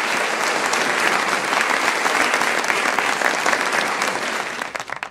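Crowd applause: dense, steady clapping of many hands that dies away near the end.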